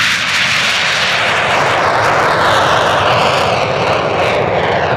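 Jet fighter at take-off power, its engines giving a loud, steady roar as it lifts off and climbs past. A whine in the noise slides down in pitch as it goes by. The aircraft is a twin-engined Northrop F-5E Tiger II.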